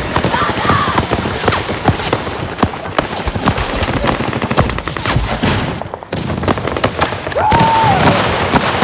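Rapid rifle gunfire: bursts of automatic fire mixed with single shots in quick succession. There is a brief lull just after six seconds.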